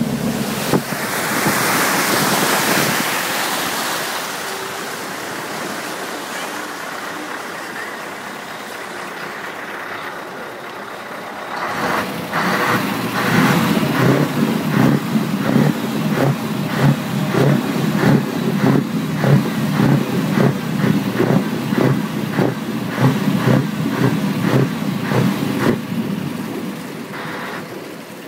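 V8 car with side-exit exhaust pipes driving through flood water: a loud rush of spray in the first few seconds, fading away. Then, from about twelve seconds in, the V8 exhaust runs with a low, rhythmic pulsing of about two beats a second.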